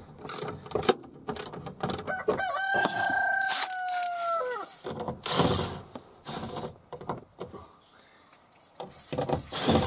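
Hand ratchet clicking on a 10 mm bolt, then a cordless power tool running for about two seconds with a steady whine that sags slightly and stops. A few knocks and rustles of handling follow.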